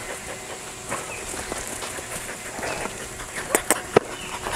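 Outdoor pen ambience: a steady hiss with a few faint short calls, and three sharp clicks close together near the end.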